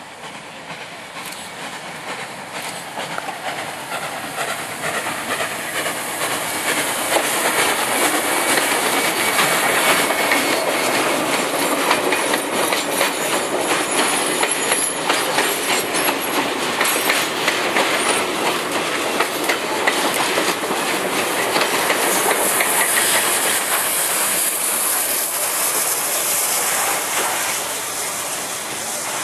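South Maitland Railways 10 class steam tank locomotive working hard as it approaches and passes, growing louder over the first several seconds. Its passenger carriages then run by close, clattering over the rail joints in a long run of clicks, easing off near the end.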